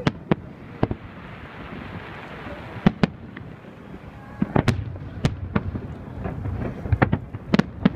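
Aerial fireworks shells bursting: about a dozen sharp bangs at irregular intervals, clustered in quick pairs and runs, over a steady low rumble.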